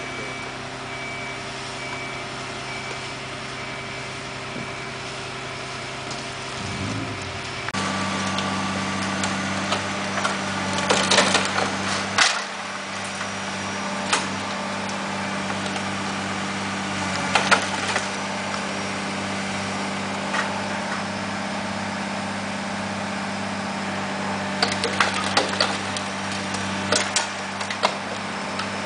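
The diesel engine of a CAT long-reach demolition excavator running steadily, with cracking and splintering crashes of roof timbers and brickwork as its grapple tears into the building. The loudest crashes come about ten seconds in, again around 17 seconds, and in a run near the end.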